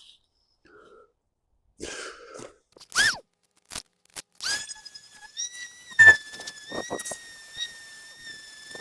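Knocks and strikes on a steel sledgehammer head as its wooden handle is fitted. A sharp strike about three seconds in, then a clear metallic ringing tone that holds for several seconds while more knocks fall.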